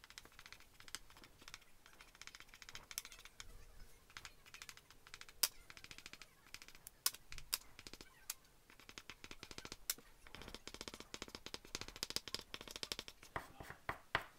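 Faint chalk pastel stick scratching across paper in rapid short strokes, with a few sharper taps mixed in.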